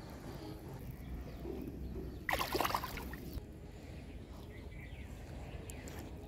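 Steady low outdoor riverside ambience, with one brief louder call lasting about a second, about two seconds in.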